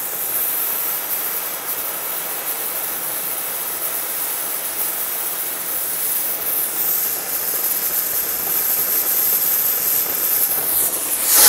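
Oxy-fuel cutting torch on a pipe-beveling carriage hissing steadily as it cuts through the steel wall of a 30-inch pipe. Near the end the hiss swells much louder.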